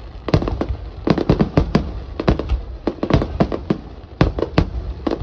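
A rapid barrage of aerial firework shells bursting: sharp booms and bangs following each other several times a second, irregular and overlapping, each with a short echoing tail.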